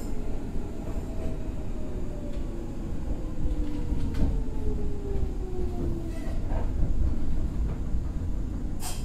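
Meitetsu 6000-series electric train heard from inside the car, rumbling on the track as its motor and gear whine falls slowly in pitch while it slows toward a station. A few sharp clicks cut in, the loudest near the end.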